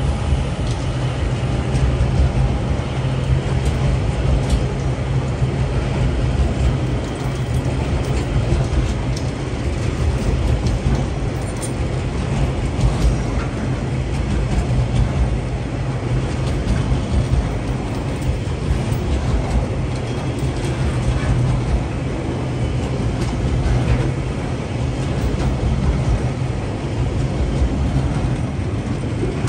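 A freight train's log-loaded wagons rolling past at close range: a steady rumble of steel wheels on the rails, with frequent clicks and clanks throughout.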